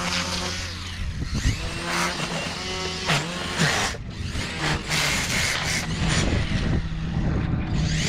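Cordless Makita string trimmer running with a steady electric whine and the hiss of the line cutting grass. Its pitch dips and recovers several times in the first few seconds as the line meets the grass, then steadies.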